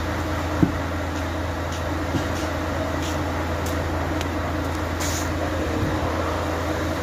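Steady low mechanical hum of a truck workshop, with a single sharp knock about half a second in and a few faint ticks.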